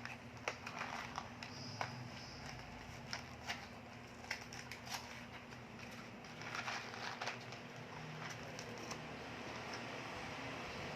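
Hands handling small items and packaging from a glucose monitor kit: scattered clicks and taps, with a stretch of plastic crinkling about six to seven seconds in, over a faint steady hum.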